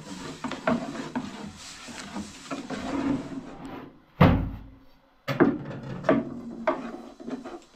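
Scattered knocks and clatter of objects being handled, with one heavy thump about four seconds in and another sharp knock about a second later.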